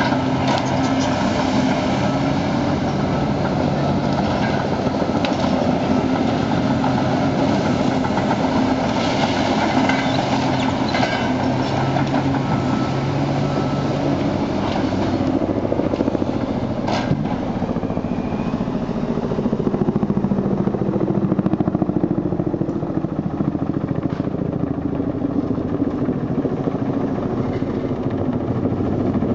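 Diesel engine of a tracked log loader running steadily as its grapple swings logs, with a few sharp knocks of log and grapple. In the second half a tandem-rotor helicopter's rotor noise swells in.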